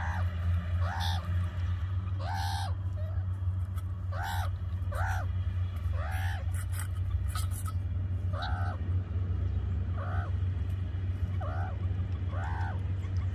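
An animal calling over and over in short, arched, pitched calls, about one a second, over a steady low hum.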